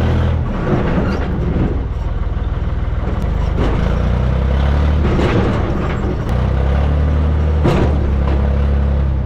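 Engine of an old Case backhoe running while the machine is driven, heard from its open cab, with a steady low drone that eases off and comes back a couple of times. A few short knocks and rattles from the machine, the sharpest near the end.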